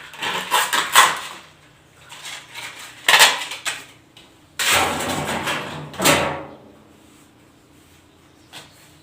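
A sheet of sandpaper being cut into a small piece: a few rasping, rustling strokes, the longest about two seconds, with a pause near the end.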